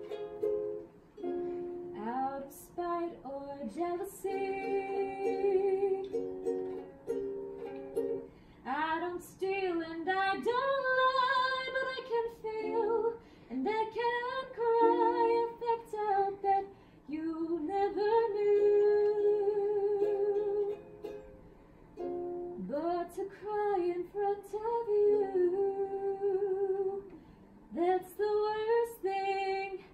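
A woman singing with her own ukulele accompaniment, holding long notes with vibrato over steady strumming, with short breaks between phrases.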